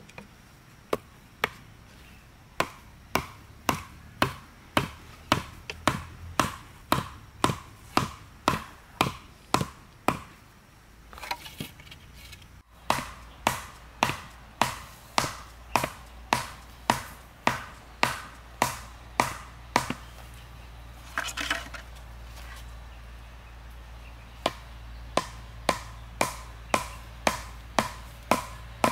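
Short wooden log used as a mallet, pounding split bamboo slats into the ground: sharp wooden knocks about two a second, in three runs with breaks of a few seconds between them.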